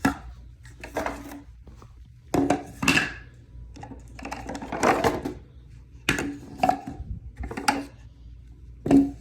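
Firework rack parts being handled and set down: a string of irregular knocks and clatters of hard tubes and pieces, in clusters about a second or two apart.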